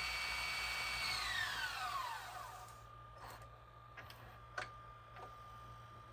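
Motor inside an LG RC7000 VHS/DVD recorder whining steadily, then winding down in pitch over about a second and a half as it spins down. This is followed by four sharp mechanical clicks from the mechanism.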